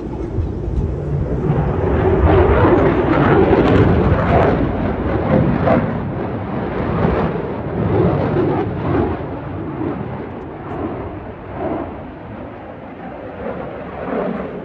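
F-22 Raptor's twin Pratt & Whitney F119 turbofans passing overhead: a loud, rough jet rumble that swells to its loudest about two to four seconds in, then slowly fades with an uneven, rippling texture as the jet climbs away.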